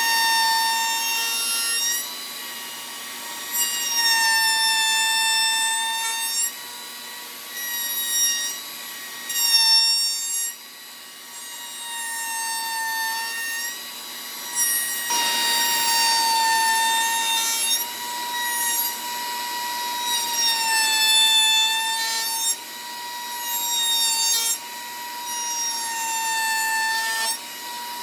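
High-speed electric woodworking power tool running with a steady high whine that sags slightly in pitch while it cuts wood. It works in several passes, with short drops in level between them.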